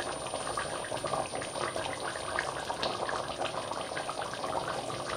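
Thick oxtail gravy simmering in the pot as it cooks down, with a steady crackle of many small bubbling pops.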